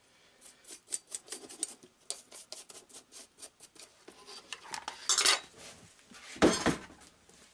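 Light metallic clinks and taps of small parts and tools being handled on a workbench, with a scrape about five seconds in and a louder knock about a second later.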